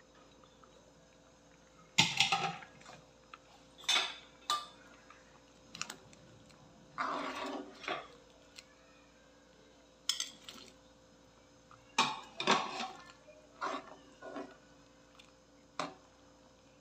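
A ladle stirring a vegetable stew in a wok, knocking and scraping against the pan in separate bursts every second or two, the loudest about two seconds in. A faint steady hum runs underneath.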